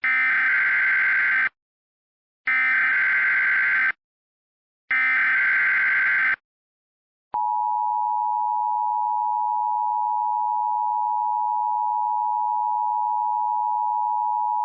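Emergency Alert System broadcast: three bursts of SAME header data tones, each a buzzy warble about a second and a half long with a second's gap between. Then, about seven seconds in, the steady two-tone EAS attention signal (853 and 960 Hz together) begins and holds, opening a Required Monthly Test.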